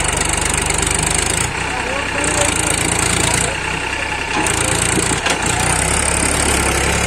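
Powertrac 439 diesel tractor engine running hard under load as it tries to drag a loaded trolley out of mud. The engine eases about a second and a half in and pulls harder again from about four and a half seconds.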